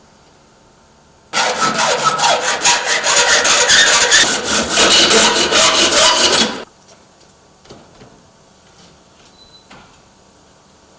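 A saw cutting the hinge-side frame piece of a security door to length, in quick, steady back-and-forth strokes. It starts abruptly about a second in and stops after about five seconds.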